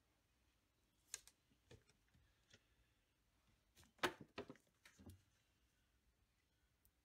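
Faint handling noise on a workbench: a few light clicks and taps, then a short cluster of sharper clicks and knocks about four to five seconds in as a rag and a bottle are put down and picked up.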